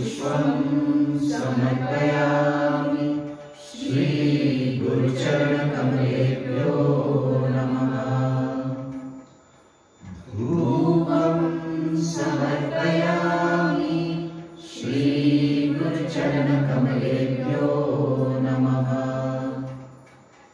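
Voices chanting a devotional mantra on long, held notes, in four phrases with short breaks for breath about 4, 10 and 15 seconds in.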